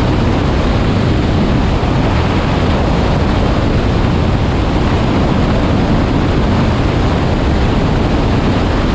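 Steady, loud rushing noise of an aircraft in flight: airflow buffeting the microphone of an outside-mounted camera, blended with engine noise, with no change in level.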